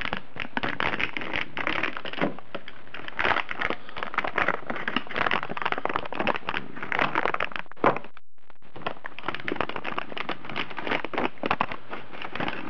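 Clear plastic hard-drive package crackling and crinkling as it is torn open and worked by hand, with a brief break about eight seconds in.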